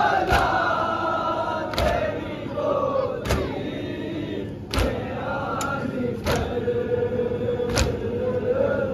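A crowd of men chanting a Shia mourning lament (nauha) in unison, with a sharp unison slap of hands striking chests (matam) about every second and a half.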